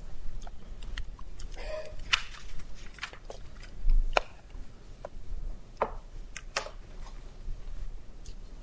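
Scattered clicks, taps and rustles of papers and objects being handled at a courtroom lectern microphone, with a low thump about four seconds in, over a steady room hum.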